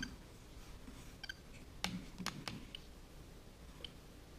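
Faint, short clicking ticks from a Google Nest Thermostat as its touch-sensitive side is swiped and tapped, coming every second or so, with a couple of soft finger taps on the unit about halfway through.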